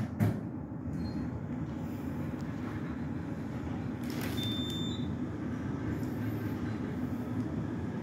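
Glass-walled elevator car descending: a steady low rumble and hum of the car travelling. There is a knock just after the start and a short high beep about four and a half seconds in.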